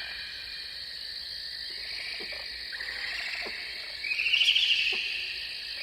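Night-time nature ambience: a steady high-pitched insect chorus, joined about four seconds in by a rapid pulsing trill, with a few faint ticks.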